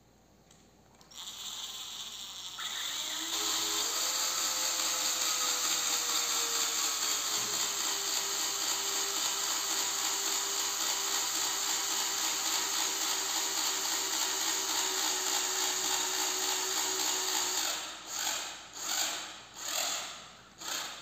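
Cordless drill driving a small screw into the aluminium insert jammed inside a broken fishing rod section: a steady motor whine that drops slightly in pitch a few seconds after starting and runs for about fourteen seconds. Near the end come about four short bursts as the trigger is pulsed.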